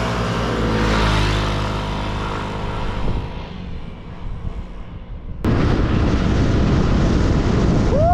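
A motor scooter rides past, its engine note falling in pitch and fading as it goes away. About five seconds in this cuts suddenly to loud, steady wind rush on the microphone of a camera mounted on a moving scooter.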